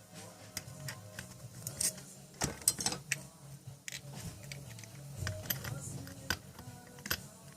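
Scattered light clicks and clinks of small parts being handled, a cluster of them louder around the middle, over faint background music.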